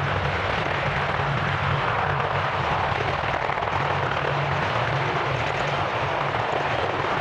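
Boeing AH-64 Apache attack helicopter hovering just above the ground, its rotors and twin turboshaft engines running steadily.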